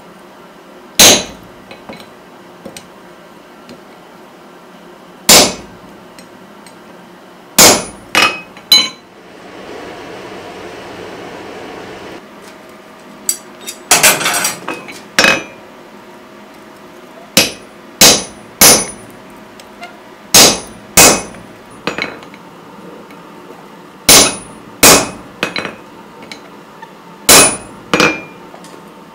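Heavy hammer blows on a hot punch, driving it into a red-hot steel bar on the anvil. The blows are sharp and metallic, each with a short ring, and come singly and in quick twos and threes with pauses between. A steady hiss runs for about three seconds near the middle.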